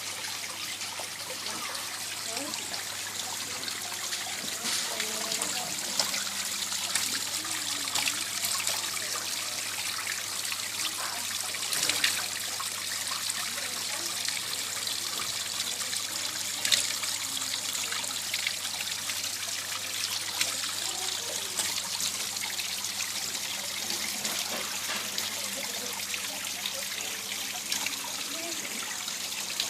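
Water from a garden pond waterfall trickling and splashing steadily into the pond, with a couple of brief louder splashes partway through.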